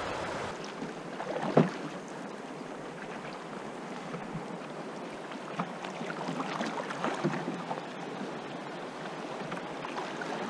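Moving river water rushing and lapping around a canoe hull, with a few short paddle splashes and knocks scattered through it; the sharpest comes about one and a half seconds in.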